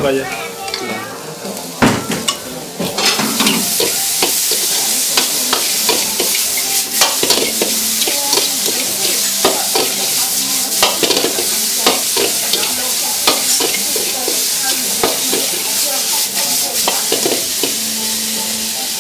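Stir-frying in a metal wok: food sizzling loudly in hot oil while a metal ladle scrapes and taps against the wok many times. The sizzle swells about three seconds in and stays steady after that.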